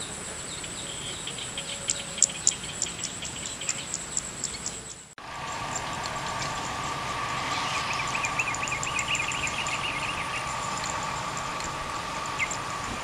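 Outdoor insect and bird ambience: a steady high-pitched insect buzz with a run of quick chirps about two seconds in. It cuts off sharply about five seconds in and gives way to a steady hum with a warbling bird call and scattered chirps.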